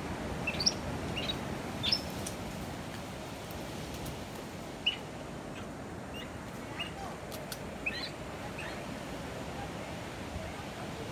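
Short, high chirping calls, one every second or so in scattered ones and twos, over a steady low background rush.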